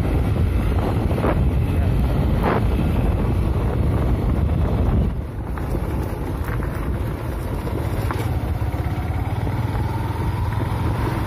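Motorcycle riding: wind rushing over the microphone on top of the engine running. The rush drops a little about five seconds in, and near the end a faint rising whine comes in as the engine picks up.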